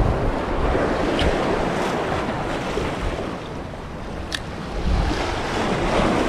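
Sea surf breaking and washing against the rocks of a jetty, with wind buffeting the microphone. A short click is heard about four seconds in.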